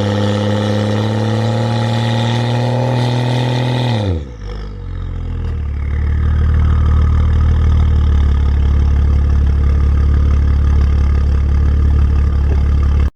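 BMW 335i's N55 turbocharged straight-six with a catless downpipe, idling on a cold start. About four seconds in the revs drop sharply, and the exhaust settles into a louder, deep, steady drone.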